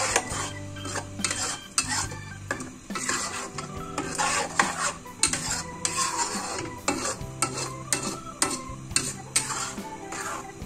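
A metal spatula repeatedly scraping and stirring a thick, wet spice paste in a black iron wok, with irregular clatter and scrape strokes and a sizzle as the paste cooks down. The paste is dry-cooked without oil until its water boils off.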